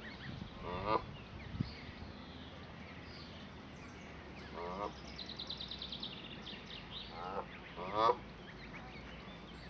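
Canada geese giving short honking calls, four in all, the last one the loudest.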